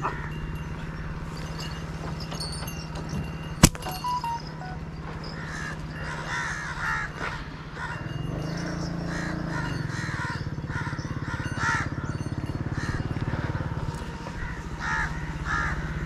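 Crows cawing repeatedly, the calls clustering from about six seconds in, over a steady low engine hum. A single sharp click sounds about three and a half seconds in.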